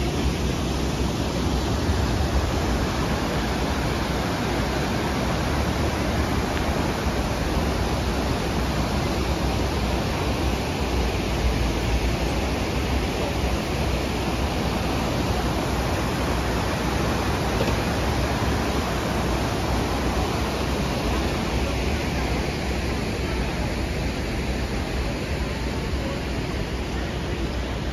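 Steady outdoor rush of noise from water flowing in an urban stream, blended with city hum and faint murmur of passers-by.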